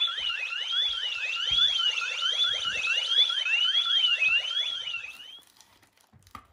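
Electronic alarm siren: a warbling tone sliding up and down about once every 0.8 seconds, with fast rising chirps layered under it, stopping abruptly about five seconds in.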